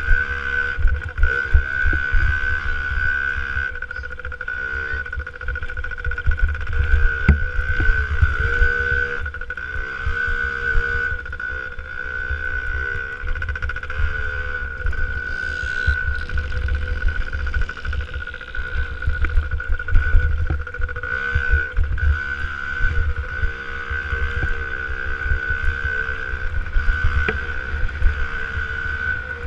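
Two-stroke 65cc motocross bike engine revving up and down repeatedly as the rider works the throttle through corners and straights, with a steady high whine above it. Heavy wind buffeting rumbles on the bike-mounted microphone.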